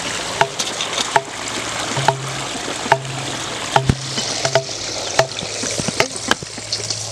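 Tomatoes and green chillies being washed by hand in a steel bowl of water. The water sloshes and splashes steadily, with frequent sharp knocks at irregular intervals.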